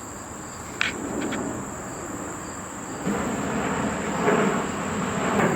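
Insects such as crickets or cicadas droning in a steady, high-pitched trill. About halfway through, a louder rushing noise builds up underneath, like traffic passing.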